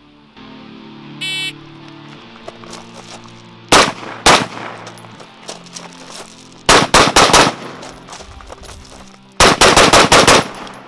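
A shot timer beeps once about a second in, then a 14.5-inch FERFRANS piston AR-15 fires three strings with pauses between: two shots, then four, then six in quick succession.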